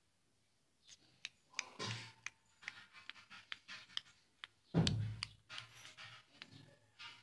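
Faint handling noise close to the microphone: scattered light clicks and rustles, with a soft breathy sound about two seconds in and a dull low thump about five seconds in.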